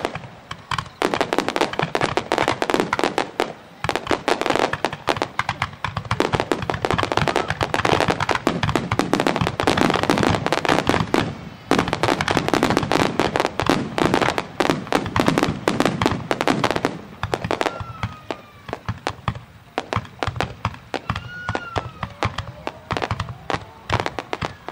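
Fireworks display: aerial shells and ground fountains going off in a dense, rapid run of bangs and crackling. It thins to sparser cracks over the last several seconds, when a few brief whistling tones glide up and down.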